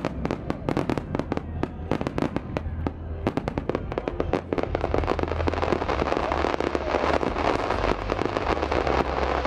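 Starmine fireworks display firing: rapid sharp reports, many per second, that merge into a dense continuous wash about halfway through.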